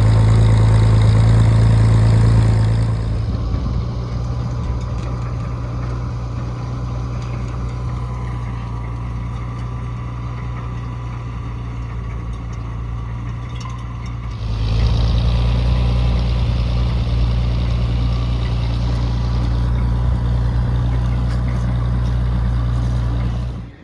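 Old farm tractor engine running steadily at low speed; it drops away about three seconds in and comes back strong about halfway through, then cuts off abruptly at the end.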